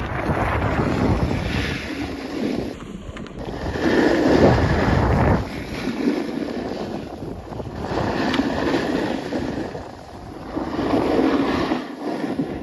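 Wind buffeting the phone microphone: a loud rushing noise that swells and eases several times.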